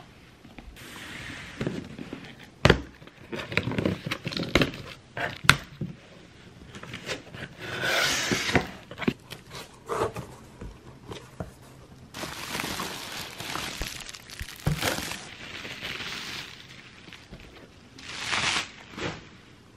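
Hands unpacking cardboard delivery boxes: cardboard scraping and knocking, bubble-wrap packing crinkling, and items set down with sharp knocks, all in an irregular run of rustles and thuds.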